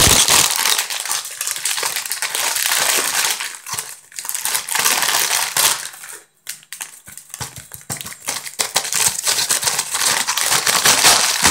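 A chip bag crinkling loudly as it is handled, tipped and shaken, with chips spilling out onto a paper towel, in several bouts with brief pauses.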